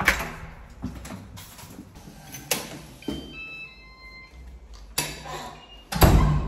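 An apartment front door being opened and let shut with a digital door lock: a clunk of the handle, knocks and footsteps, and a short electronic beeping melody about three seconds in. A heavier thump comes near the end.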